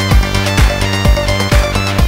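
Background music with a steady beat, a drum hit about every half second under sustained notes.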